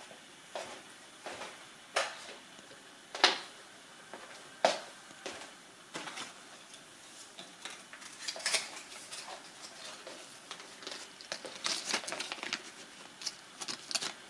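Scattered clicks and knocks of small hard objects being handled, with two sharp loud knocks a few seconds in and a quicker run of lighter clicks in the second half.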